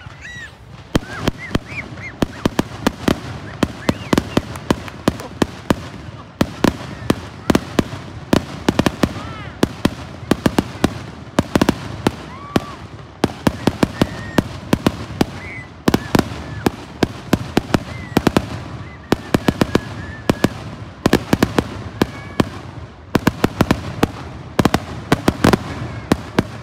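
Aerial fireworks display: a dense, rapid run of sharp bangs and cracks, many each second, starting about a second in.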